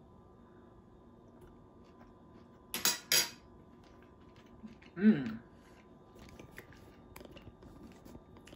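Two quick clinks of a metal fork against a plate about three seconds in, then a short hummed 'mmm' as a man chews a bite of food.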